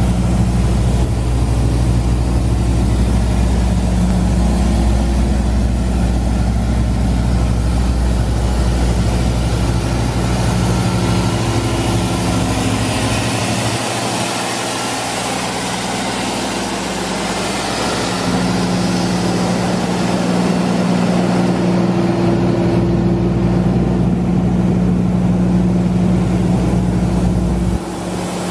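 Cummins diesel engine of a Doosan 9/300 trailer-mounted air compressor running steadily, with a loud, even low drone.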